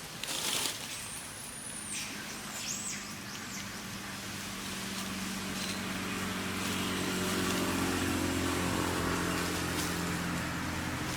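A motor vehicle's engine running, growing louder from about halfway through as it comes closer. A few short high chirps sound in the first few seconds.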